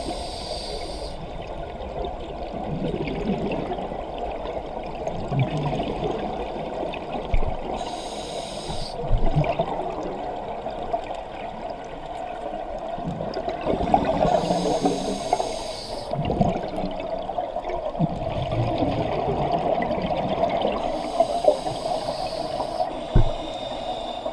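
Scuba diver breathing through a regulator underwater: a hiss with each inhalation, about four times and roughly seven seconds apart, and bubbling rumbles of exhaled air between, over a steady underwater hum.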